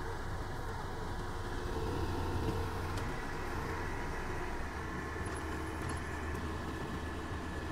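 Kubota DC-105X crawler combine harvester's diesel engine running steadily, a low drone.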